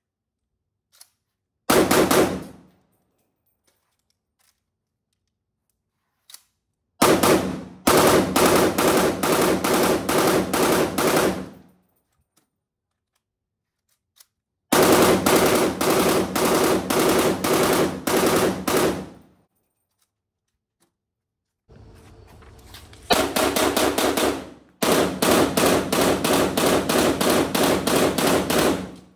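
POF CW39 rifle firing on full automatic in rapid bursts: a short burst about two seconds in, then longer bursts of three to four seconds each, separated by a few seconds of quiet.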